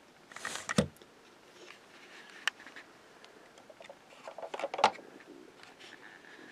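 Light clicks and rustles of plastic toy vehicles being handled: a short cluster just under a second in, a single sharper click about two and a half seconds in, and another cluster near five seconds as a hand works the toy truck's cab.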